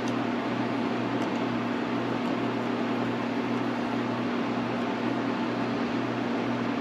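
Steady low machine hum with an even hiss, unchanging throughout, with a couple of faint ticks about a second in.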